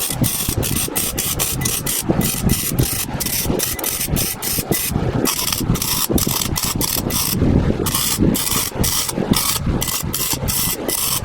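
MIG welder arc crackling in short rapid pulses, about four a second, as thin rusty steel on a pickup bed's support rail is stitch-welded, pausing briefly a couple of times. A steady low rumble runs underneath.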